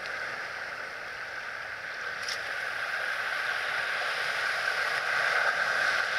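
Waves washing and splashing against a rock shelf: a steady, thin hiss of surf and moving water that grows slightly louder.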